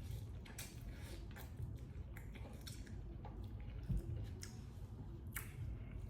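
Close-up chewing of soft chicken noodles: an irregular string of short, wet mouth sounds, with one low thump about four seconds in.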